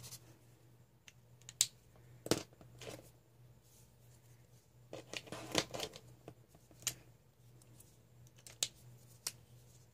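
Plastic markers being handled: scattered small clicks, with a longer rustle about five seconds in. A faint steady low hum runs underneath.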